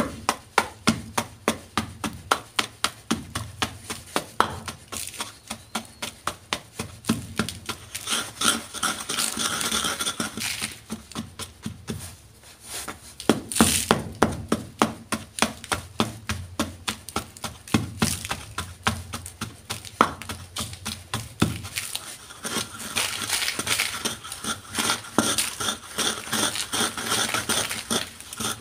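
A pestle pounding and crushing blocks of gym chalk in a mortar: repeated sharp knocks, about three a second, with a couple of stretches of denser crunching and grinding as the chunks break down into powder.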